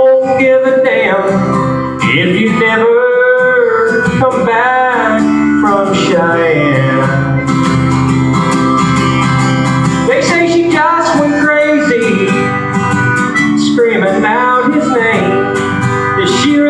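A man singing a country song while playing an acoustic guitar, with some long wavering held notes.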